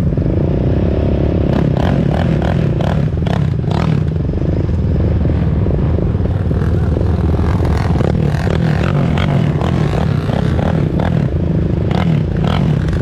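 ATV engine running steadily under way, with frequent knocks, scrapes and rattles throughout.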